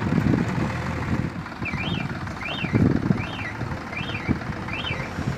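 Tractor engine revving in surges as it strains to pull a trailer stuck in mud. From about a second and a half in, an electronic alarm sweeps up and down in pitch, repeating about every three-quarters of a second.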